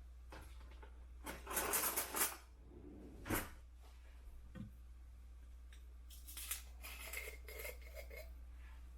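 Faint handling noises: a few short rustling, scraping bursts, a sharp tap, then more small scrapes and clinks, one with a brief light ring.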